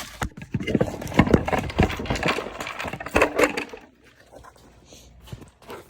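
Plastic HDPE mortar tubes and the firework rack knocking and clattering as they are handled, a quick run of knocks lasting a few seconds, then much quieter near the end.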